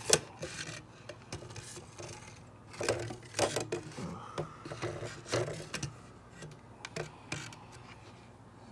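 Handling noise: scattered light knocks, taps and rubbing as the symbols and the phone are moved about, with a sharp click right at the start.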